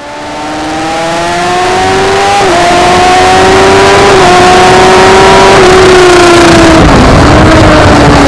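Kawasaki ZX-10R's inline-four engine at full throttle at high speed over heavy wind noise, its pitch climbing with small dips as it shifts up about two and a half, four and five and a half seconds in. Near the end the pitch falls as the bike brakes and shifts down.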